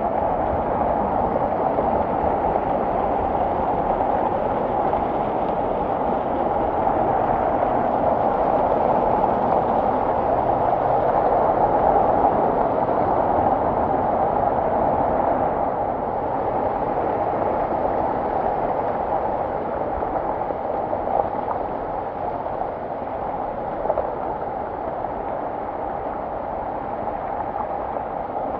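Muddy floodwater rushing and splashing down a steep rocky gully, a steady churning rush of water over stones, swelling a little about halfway through.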